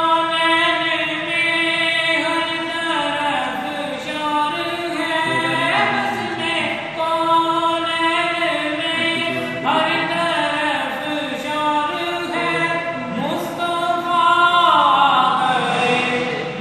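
A man singing a naat solo and unaccompanied, in long held notes that slide between pitches.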